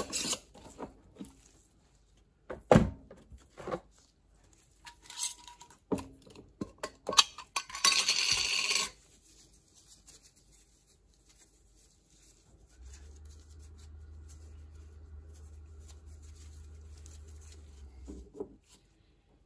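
Clinks and knocks of small hard objects being handled and set down on a wooden workbench, with a brief loud rustle about eight seconds in. After that comes a low steady hum for about five seconds.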